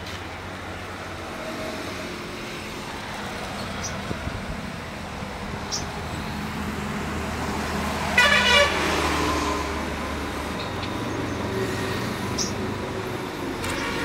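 Steady low rumble of road traffic, with a vehicle horn honking briefly about eight seconds in, the loudest sound.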